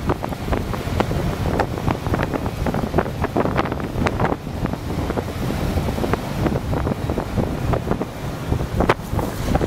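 Wind buffeting the microphone of a camera moving fast along a road, a steady rumble with frequent small knocks and rattles.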